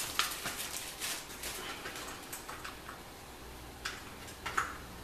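Scattered light clicks and rustles of hardware and packaging being handled and rummaged through, with a couple of sharper clicks near the end.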